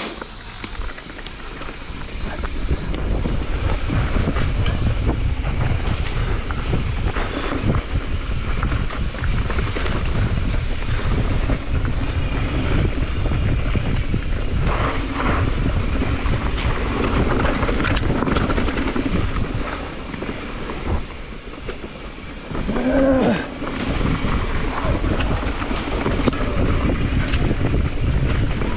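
Wind buffeting the microphone in a steady low rumble, with a brief pitched sound about 23 seconds in.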